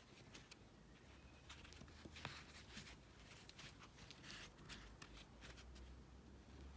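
Faint, irregular scratching and rustling of a crochet hook pulling yarn through stitches, working single crochet.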